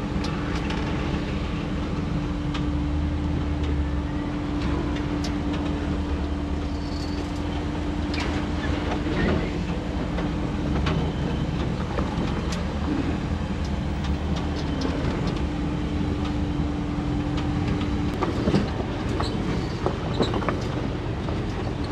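A 4x4 crawling slowly down a rocky trail: the engine runs at a steady low drone with a constant hum over it, and short knocks and creaks from tyres and suspension on rock come at irregular moments.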